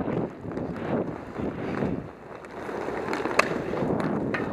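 Inline skate wheels rolling and scraping across a roller hockey rink floor, with one sharp clack about three and a half seconds in.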